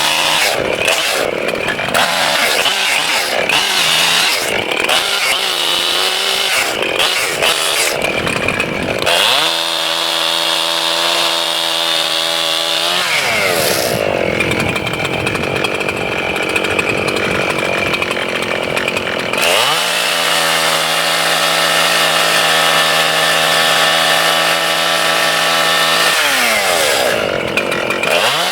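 Two-stroke chainsaw cutting through a dead oak log for firewood. The engine labours unevenly while in the cut, and twice runs at a steady high pitch between cuts. Each time the pitch then slides down as the throttle eases off.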